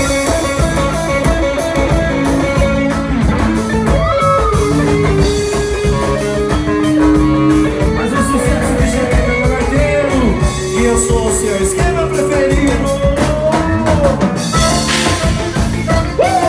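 Live band playing accordion-led gaúcho music: a piano accordion with electric guitar, bass guitar and drum kit over a steady beat.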